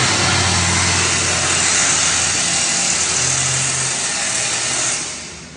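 Old FNM diesel truck engine running loud through an open diffuser exhaust: a steady heavy rumble with a lot of rushing noise, fading away in the last half-second.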